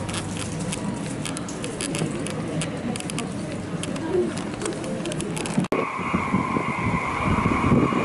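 Airport terminal ambience with footsteps and light clicking, then, after a cut about six seconds in, strong typhoon wind buffeting the microphone on an open observation deck, over a steady high whine.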